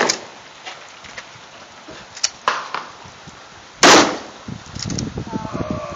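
Gunfire from an AR-15-style rifle. A quieter sharp crack comes about two and a half seconds in, then one loud shot about four seconds in. A crackling rustle follows near the end.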